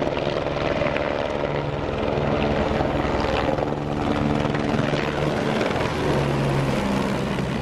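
Helicopter running steadily: a continuous engine-and-rotor drone with a low hum that holds its pitch.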